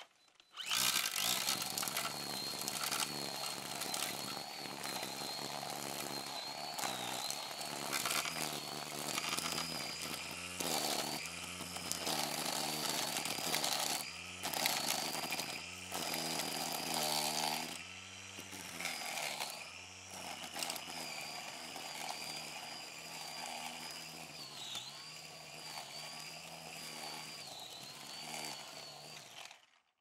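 Brush cutter running, with a high whine from the spinning head. Its speed rises and falls several times in the middle, then settles back to a steady run before cutting off just before the end.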